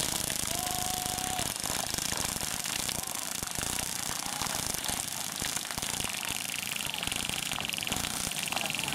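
Airsoft guns firing on full auto, a rapid mechanical rattle of gearboxes cycling and pellets going out, with a steady stretch of fire from about six seconds in.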